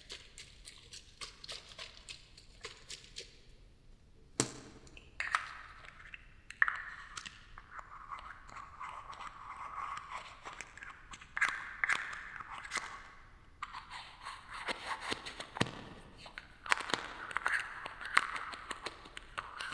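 Close-miked ASMR trigger sounds: quick taps and clicks, with longer stretches of crinkly scratching and rustling.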